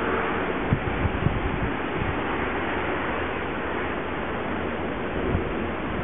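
Wind blowing across the camera's microphone: a steady rushing noise with a few brief low thumps from gusts.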